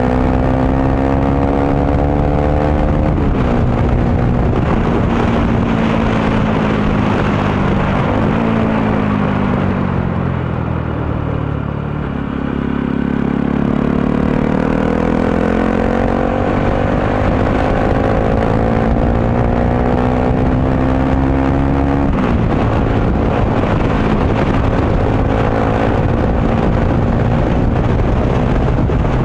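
Motorcycle engine under way, heard from the rider's seat over rushing wind. The engine note climbs steadily and drops sharply at a gear change a few seconds in. It sinks as the bike slows around the middle, then climbs for several seconds before dropping sharply again about three-quarters of the way through.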